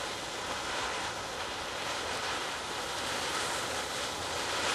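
Homemade potassium nitrate and sugar smoke bomb, set in paraffin wax, burning with a steady hiss.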